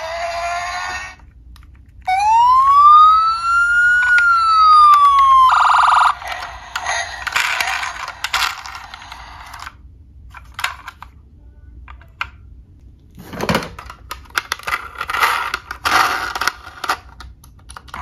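Electronic siren of a Tonka toy police UTV sounding one wail, rising and then falling over about three and a half seconds, cut off by a short buzzy horn blast. Later come scattered clicks and rattles of the plastic toy being handled.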